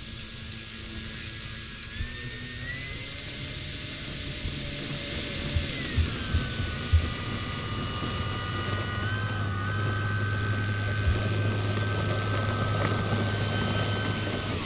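Electric 12S-powered FMS Extra 330 RC plane's motor and propeller whining at taxi throttle. The pitch steps up about two seconds in and drops back about six seconds in as the throttle changes, with a few light knocks near the middle.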